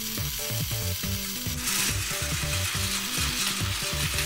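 Battery-powered Plarail toy train running on plastic track: the steady rattling whir of its small motor and gears, growing louder about a second and a half in. Background music with a plodding bass line plays underneath.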